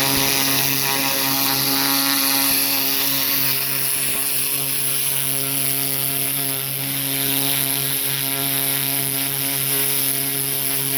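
Small pressure washer running steadily, a constant motor drone under the hiss of water spraying from its turbo tip as it blasts a turkey skin and feathers clean.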